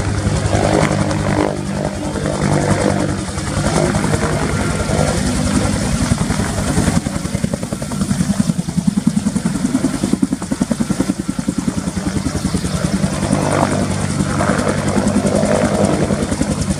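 Bell AH-1W SuperCobra attack helicopter flying low, its two-bladed main rotor beating in a rapid, steady pulse over the whine of its turbine engines.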